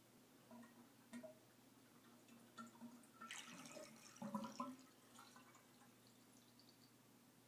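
Last of the water draining out of a bathtub: faint drips and small gurgles at the drain, with a louder spell of gurgling about three to four and a half seconds in. A faint steady hum lies underneath.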